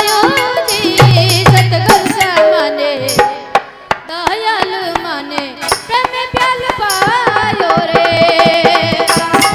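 Rajasthani devotional bhajan music: a wavering lead melody over fast hand-drum strokes. It thins out briefly about three and a half seconds in, then picks up again with held notes.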